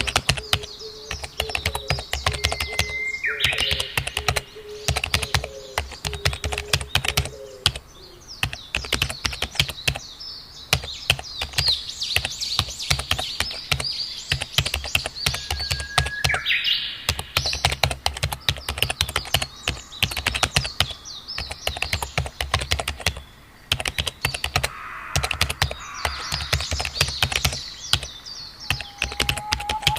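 Typing on a computer keyboard, a continuous irregular run of key clicks. Songbirds chirp and warble over it throughout.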